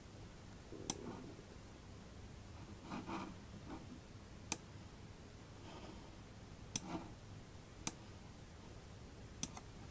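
Computer mouse buttons clicking sharply about six times at irregular intervals, the last two close together, setting points with SketchUp's tape measure tool to draw guide lines. Faint soft rustles fall between the clicks.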